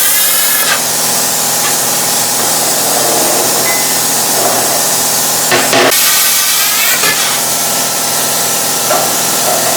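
Plasma cutter cutting holes through steel plate: a loud, steady rushing noise of the arc and its air jet, with a faint wavering whine.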